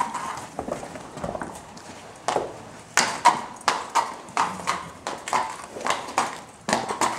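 A harness racehorse mare's hooves clip-clopping on a concrete barn aisle as she is led at a walk: sharp hoof strikes at a steady pace of about three a second from about two seconds in, with softer, scattered steps before that.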